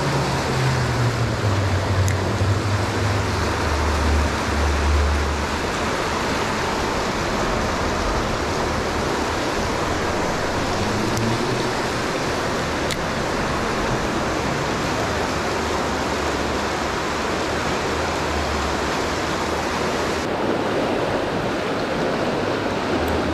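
River water running steadily, a dense even rush, with a low rumble that comes and goes.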